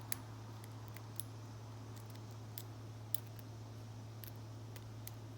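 Faint, scattered small metallic clicks of a lock pick and tension wrench working the pin stack of an Abus brass padlock, over a steady low hum.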